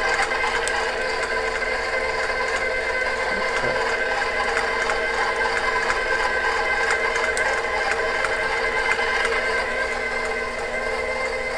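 Professional stand mixer running with a steady motor whine, its wire whip beating softened butter in the stainless steel bowl.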